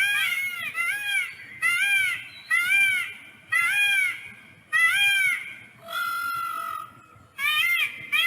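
Peacock calling: a run of loud, short calls that rise and fall in pitch, about one a second. One longer call holds an even pitch about six seconds in, and quicker calls follow near the end.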